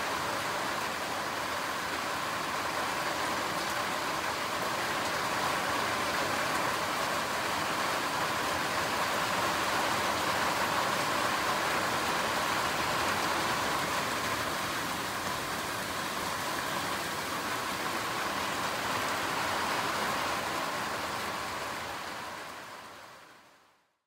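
Steady rain falling on a conifer forest, an even hiss that fades out near the end.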